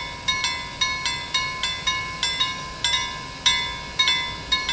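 Level-crossing warning bell ringing in quick, regular strikes, about three to four a second, each a bright ringing tone that fades before the next: the crossing's warning that a train is approaching.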